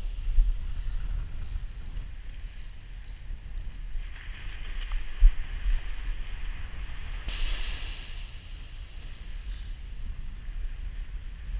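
Surf washing onto the beach twice, with wind rumbling on the microphone throughout. A spinning reel is cranked with light ticking in the first few seconds as a large hooked fish is slowly brought in, and two short thumps stand out, one near the start and one about five seconds in.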